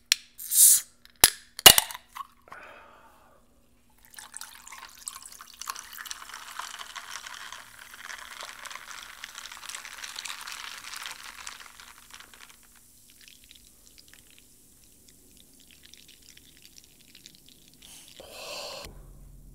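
A can of drink opened with a few sharp clicks, then poured over ice cubes into a glass mug: a steady pour lasting several seconds that thins to a quiet trickle.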